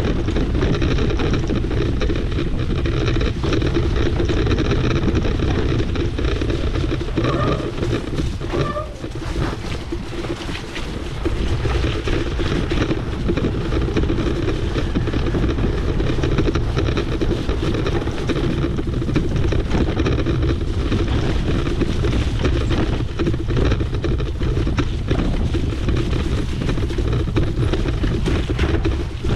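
Rough rumble and rattle of a Trek Powerfly 4 electric mountain bike riding a trail, with wind buffeting the microphone; it dips briefly about a third of the way in.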